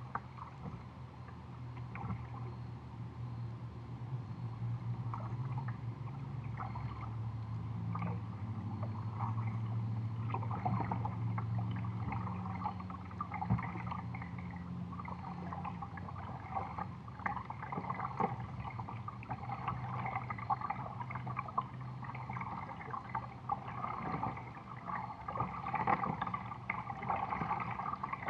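Water lapping and gurgling against the plastic hull of a sit-on-top kayak, with small uneven splashes that grow busier in the second half. A low steady hum sits underneath and fades out about three-quarters of the way through.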